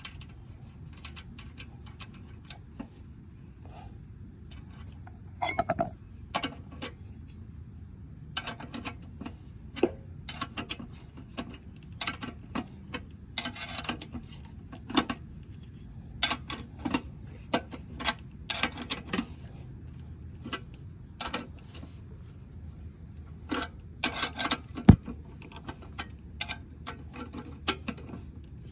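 Irregular clicks, clinks and knocks of lawn mower wheel parts and hand tools being handled while the wheel and a washer are fitted onto the axle, with one sharper knock late on.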